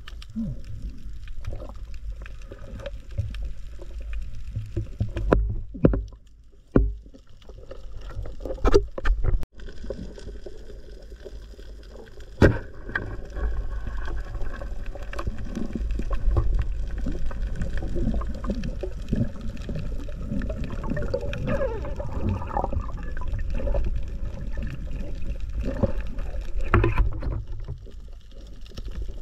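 Underwater water noise heard through a diving camera: a steady low rumble with moving, gurgling water, broken by several sharp clicks and knocks, most of them in the first half.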